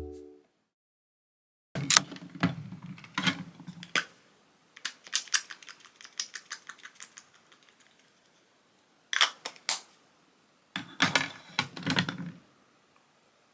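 Typing on a computer keyboard: four short bursts of key clicks separated by pauses.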